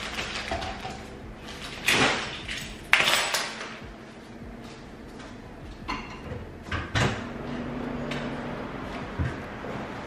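Bags rustling and things being put down on a stone kitchen counter: a run of knocks and clatters, the two loudest about two and three seconds in, including keys dropped on the counter. A low thump from the front door opening near the end.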